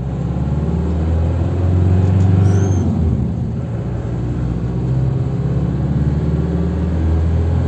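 Isuzu Panther engine running steadily with a low hum, its pitch dropping briefly about two and a half seconds in before settling again.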